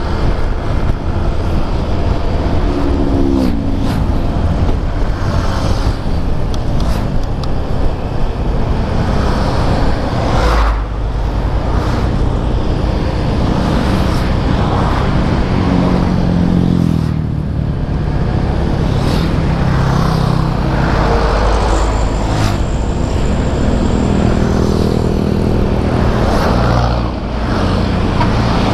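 Motorcycle riding on a road: the engine runs continuously, its pitch rising and falling as the revs change, with road and traffic noise around it.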